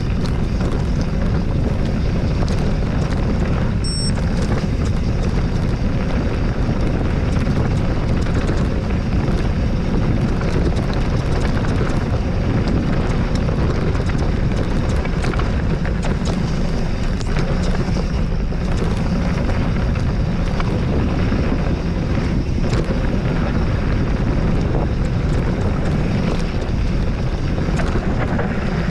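Steady, loud wind buffeting the microphone with a deep rumble, and faint small clicks scattered through it.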